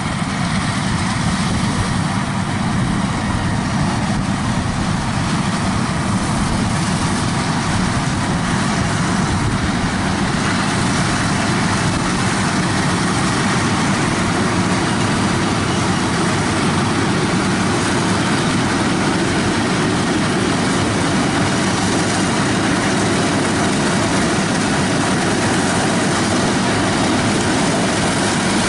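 Yanmar 82 rice combine harvesters running steadily while cutting rice, a loud continuous engine and machinery noise.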